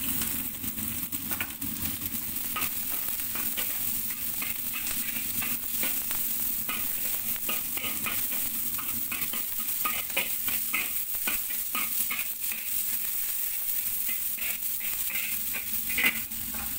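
Chopped garlic, onion and leek stalks sizzling in a wok, while a metal spatula scrapes and clicks against the wok as they are stir-fried. The sizzle is a steady hiss, and the spatula strokes come as frequent sharp clicks, with one louder knock near the end.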